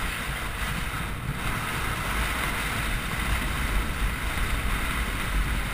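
Wind buffeting the microphone and water rushing and splashing under a fast-towed inner tube crossing lake chop: a steady rushing noise with a heavy low rumble.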